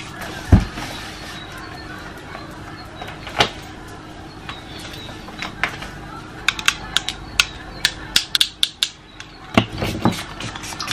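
Close handling sounds from getting dressed and using a perfume spray bottle: scattered sharp clicks and taps, many of them bunched together in the second half. A dull thump comes about half a second in, and a few softer thumps come near the end.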